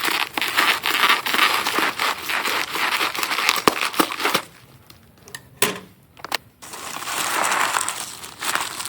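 Packing material being pulled apart and crumpled by hand, a dense crinkling and crushing, with a few sharp snaps in a quieter pause midway before the crumpling starts again.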